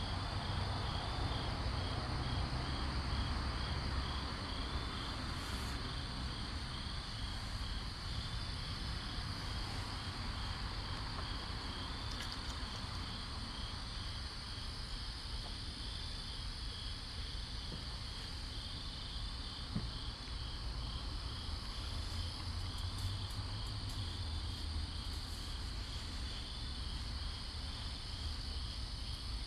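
Crickets chirping steadily, a continuous high trill with a regular pulsing chirp just below it, over a low rumble.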